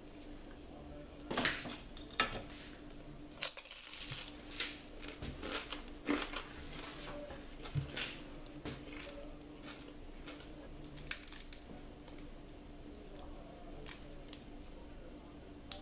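Crisp baked filo (pie-sheet) pastry crackling and flaking in scattered bursts as the pies are broken apart by hand, with occasional light knocks against a ceramic plate.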